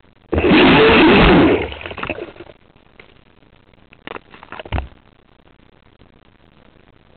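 Aquacraft SV27 RC boat's electric motor heard from onboard, starting suddenly in a loud burst of about a second with its pitch wavering and water rushing along the hull, then dying away. A few short knocks follow about a second later.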